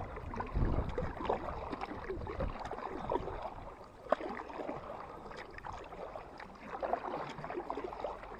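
Paddling a small canoe with a double-bladed paddle: uneven splashing and dripping as the blades dip and pull through the water, with an occasional small click.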